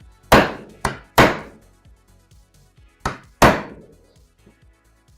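Hammer strikes knocking a plywood shelf piece into place: five sharp blows, three in quick succession and then two more about two seconds later, each ringing briefly.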